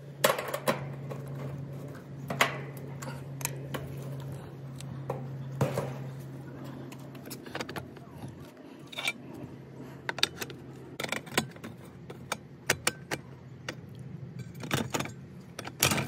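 Scattered metallic clicks and clatter of hands working the metal cover and pull-out block of an outdoor AC disconnect box, with a low steady hum that stops about seven seconds in.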